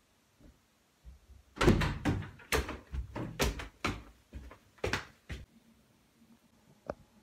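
A room door opening, with a quick, irregular run of knocks and thuds over a few seconds, then one short click near the end.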